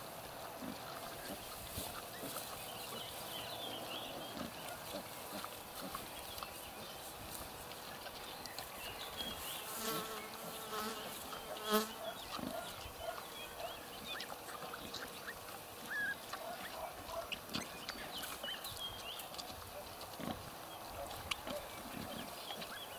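A sow and her nursing piglets: scattered soft grunts and small squeaks over a steady background hiss, with a quick run of repeated grunts about ten to twelve seconds in.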